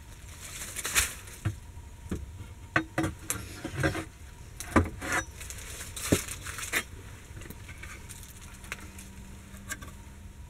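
Scattered sharp clicks and knocks with rustling of dry leaves and old wood, like steps and handling in a cramped wooden outhouse. The sounds come thickly at first and thin out after about seven seconds.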